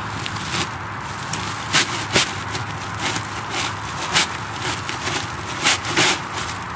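Woven plastic sack crinkling and dry hay rustling as the bag is pulled up off a tightly packed hay bale, with several sharp crackles over a steady background hiss.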